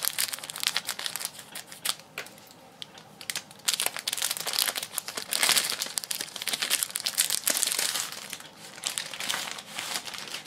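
Clear plastic shrink-wrap crinkling and crackling as it is pulled open and off a stack of comic books by hand. The crinkling goes on and off, thinner a couple of seconds in and busiest in the middle.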